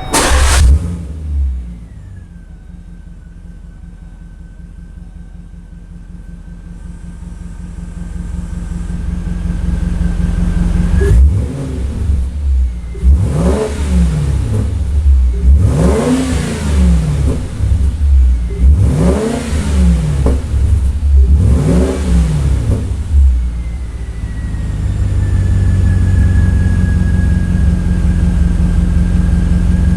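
2010 Volvo S80's 4.4-litre Yamaha-built V8, breathing through a Becker aftermarket exhaust, fires up with a short loud flare and settles to idle. In the middle it is revved four times, each rev rising and falling a couple of seconds apart, then it drops back to a steady idle. A thin high whine sits over the idle.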